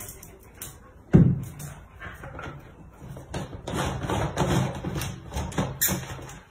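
A cat knocking and pawing at a white plastic jar's lid: one loud thump about a second in, then a run of plastic knocking and scraping in the second half as the cat works the lid loose.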